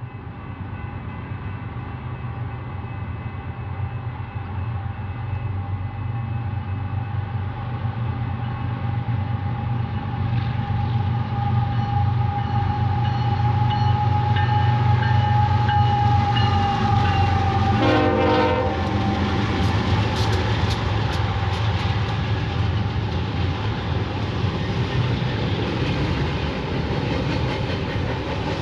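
BNSF freight train passing with its horn blowing. The locomotive's diesel engines grow louder as it approaches while the horn holds a steady chord, which ends about 18 seconds in. After that the freight cars clatter over the rail joints.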